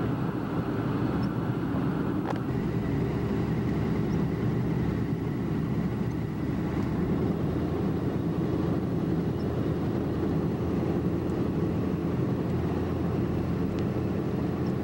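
Steady engine and tyre noise of a car cruising on a highway, heard from inside the cabin.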